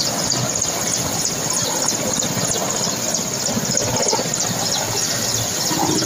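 Large transport helicopter descending low to land: a steady, high-pitched turbine whine over the rush and fast chop of the main rotor.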